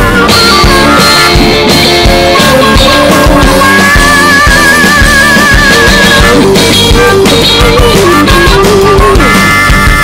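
Background music with a steady drum beat.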